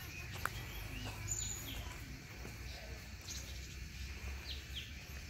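Outdoor ambience of a low steady rumble of wind on the microphone, with small birds giving several faint, short falling chirps.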